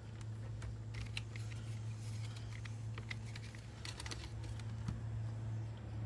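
Scattered light clicks and taps of small objects being handled and set down, over a steady low hum.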